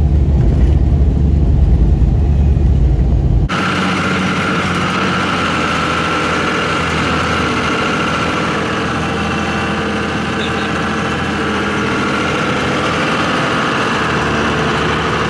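Cummins diesel pickup on compound turbos being driven. For the first few seconds there is a deep, heavy engine rumble; about three and a half seconds in it changes suddenly to a steady engine and road drone heard from inside the cab.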